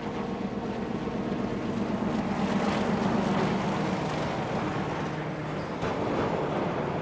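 Alco DL500 cab-unit diesel locomotive passing close, its engine running with a steady low hum that grows louder over the first few seconds, followed by the rolling rumble of its coaches on the rails.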